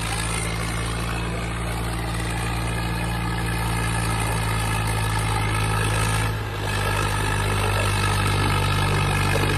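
Swaraj 744 XT tractor's three-cylinder diesel engine running steadily under heavy load while pulling a heavily loaded trolley. About six and a half seconds in, the sound dips briefly, then comes back slightly louder.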